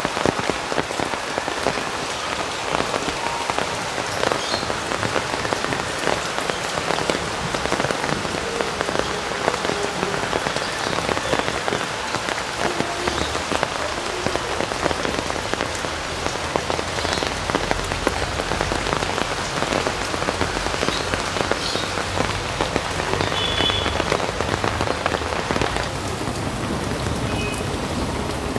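Steady, heavy rain falling on wet concrete and the leaves of potted plants: a dense, even patter of drops.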